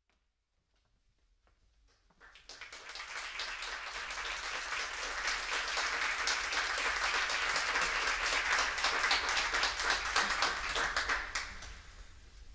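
Audience applauding as the performers take the stage: the clapping builds up about two seconds in, holds steady, and dies away near the end.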